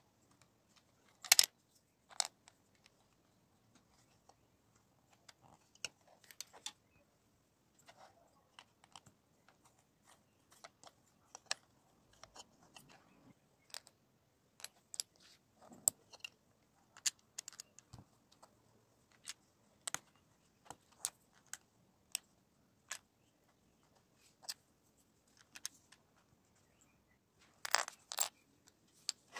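LEGO bricks being pressed together and small plastic pieces tapped and set down, a scattered run of sharp clicks, the loudest about a second in and a double click near the end.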